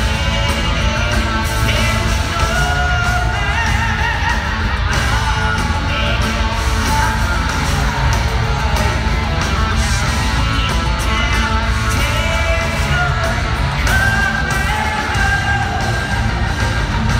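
Progressive metal band playing live and loud: electric guitar, bass, keyboards and drums, with a male lead vocal singing over them, heard from the audience in a large hall.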